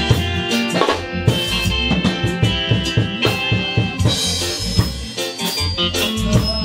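Band playing a gospel song, with a drum kit prominent, its kick and snare beating steadily under sustained keyboard chords.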